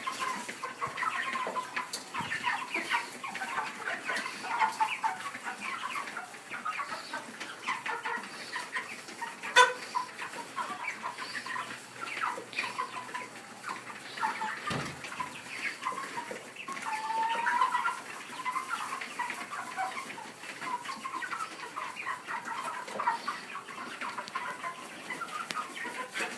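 A flock of meat chickens (broilers) calling continuously, a busy mix of short clucks and peeps. There is a single sharp click about ten seconds in and a low thud a few seconds later.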